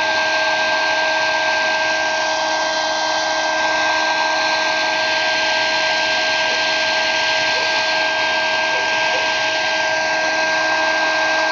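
Hair dryer running steadily: a rush of blown air with a constant motor whine.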